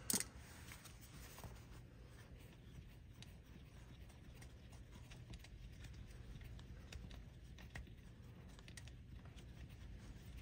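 Faint, scattered small clicks and light scraping of hands and tools working a wheel speed sensor's retaining bolt loose, with one sharper click just after the start, over a steady low hum.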